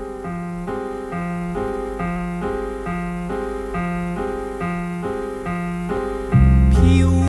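Opening theme music led by a keyboard repeating a chord figure about twice a second. Near the end, louder low notes come in with a bright swish, and the music cuts off abruptly.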